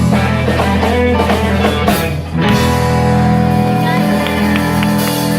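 Live rock band of electric guitars, bass and drums playing. There is a break a little over two seconds in, then the band holds one long final chord ringing out.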